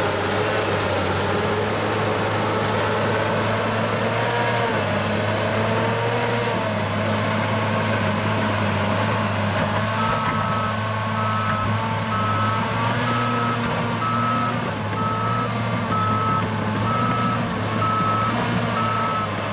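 Caterpillar 963C track loader's diesel engine running, its pitch rising and falling. From about halfway through, its backup alarm beeps steadily, about once a second, as the machine reverses.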